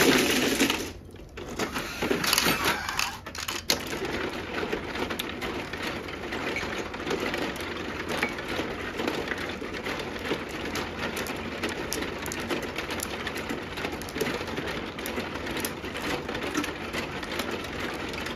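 Mahjong tiles clattering loudly as they are swept into the centre of an automatic mahjong table, with a second clatter about two seconds in. After that a steady dense rattle of small clicks, from the table shuffling and the tiles being handled.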